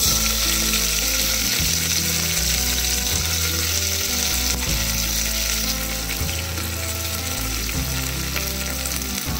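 Sliced onions and spring onions dropped into hot oil in a pressure cooker, frying with a steady sizzle. The sizzle starts suddenly as they go in and eases slightly after about five seconds.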